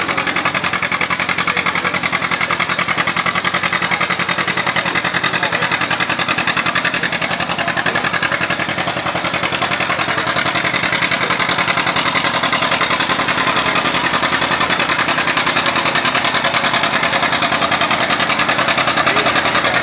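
Farm tractor engine running steadily with a fast, even pulse, growing a little louder over the second half.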